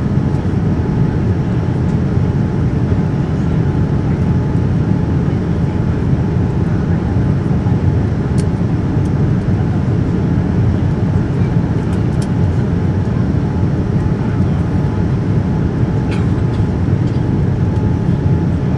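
Steady in-cabin noise of a Boeing 787-9 airliner on approach with flaps out: the low rush of airflow and its Rolls-Royce Trent 1000 engines, with a faint steady whine above it.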